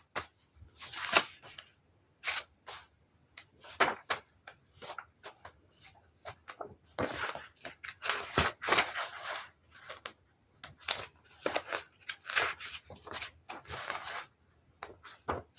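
Irregular rustling and scraping, many short bursts with gaps between them, as things on a table are handled and moved about.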